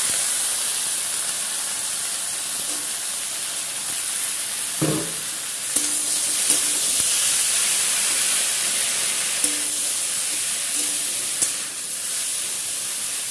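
Boiled greens and vegetable pieces sizzling in hot oil in a metal kadai, a steady loud hiss, with a metal spatula scraping and clinking against the pan a handful of times while they are stirred.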